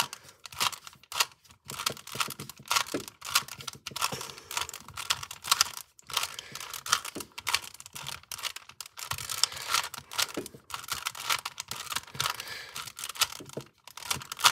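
Plastic Rubik's cube being turned rapidly by hand, its layers clicking and clacking in quick, irregular runs of several turns a second.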